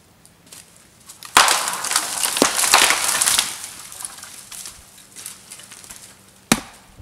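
Footsteps crunching through dry deadfall, with twigs and branches cracking and snapping underfoot. A loud spell of crackling comes about a second in, then lighter crunches follow, and a single sharp snap comes near the end.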